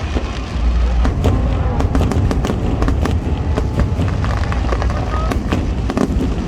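Fireworks display: rapid crackling and popping bursts with a deep continuous rumble of shells going off, with crowd voices underneath.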